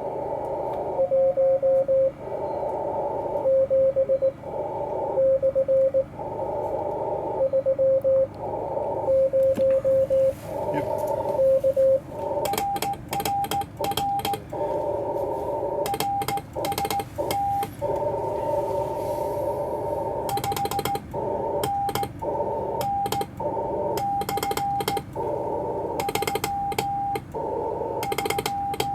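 Morse code (CW) tones from an amateur radio transceiver on the 80 metre band, keyed on and off over a hiss of band noise. A lower tone keys for about the first twelve seconds, then a higher-pitched tone takes over, with sharp clicks through the rest.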